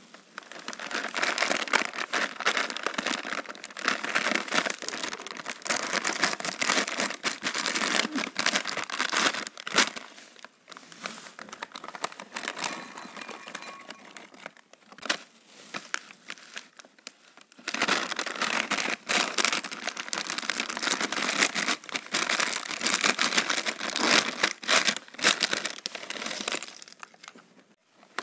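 Plastic snack packets crinkling as they are handled and torn open, in two long spells of loud crinkling. In between, a quieter stretch as corn puffs are poured from the packet into a glass bowl.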